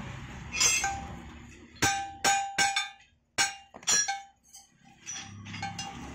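Irregular sharp metal-on-metal clinks, about ten in all, as the hot iron bar and smithing tools knock against the steel forming plate; several strikes ring on briefly with a clear tone.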